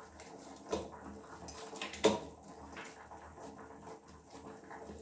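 Oiled dough being pressed and turned by hand in a steel bowl: soft squelching slaps, with a sharper knock about two seconds in.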